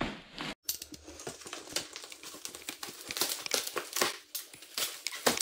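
Shipping parcel and its packaging being handled and opened: irregular crinkling and rustling with many small clicks, cut off briefly about half a second in.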